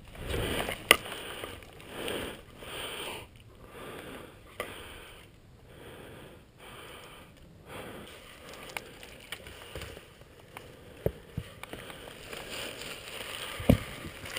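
Dry leaves rustling and crunching on a forest floor in a run of regular strokes, then a few sharp snaps near the end.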